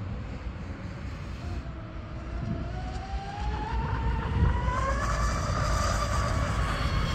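Twin 2200 kV brushless motors of a twin-motor mono RC speed boat whining at full throttle on 6S. The whine rises in pitch and grows louder as the boat closes in, peaking as it passes close by about five to six seconds in, over gusty wind noise on the microphone.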